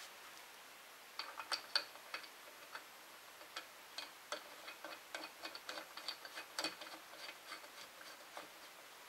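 Light metallic clicks and taps, irregular and several a second, starting about a second in, as fingers handle the small brass burner and fittings of a model flame-licker engine.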